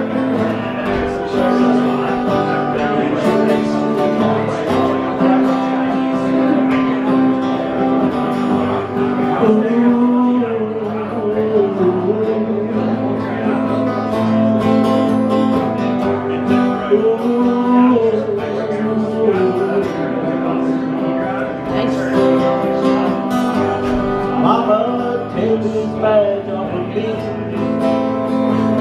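Two acoustic guitars strummed together in a live duo performance, keeping a steady rhythm.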